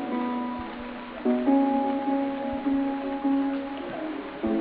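Instrumental background music with held notes, changing chord about a second in and again near the end.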